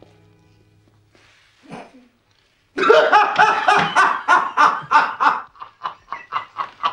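Loud, hearty male laughter in quick repeated bursts, starting about three seconds in.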